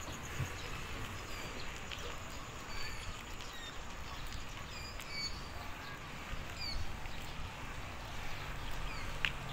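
Birds chirping with short, high calls scattered throughout, over a low rumble of wind and road noise from riding a bicycle. A single sharp click near the end.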